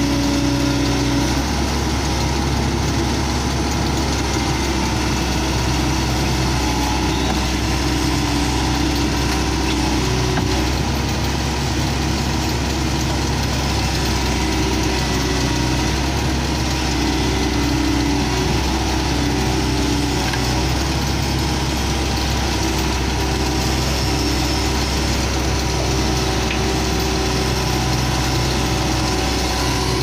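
Hitachi crawler excavator's diesel engine running steadily, an even drone with no big change in speed.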